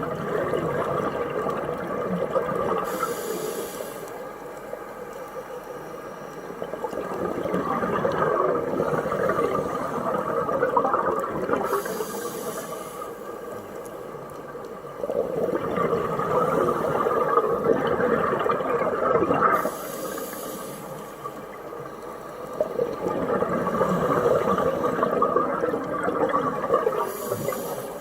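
Scuba diver breathing through a regulator underwater: a few seconds of bubbling exhale, then a short hissing inhale, repeating about every eight seconds, four breaths in all.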